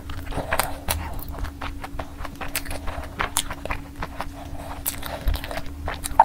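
Fingers tearing at sauce-coated fried chicken, close to the microphone: a string of irregular crackles and clicks, with a faint steady hum underneath.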